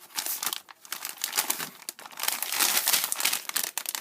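Tissue paper crinkling and rustling as a gift package is unwrapped by hand, in irregular bursts that grow busier in the second half.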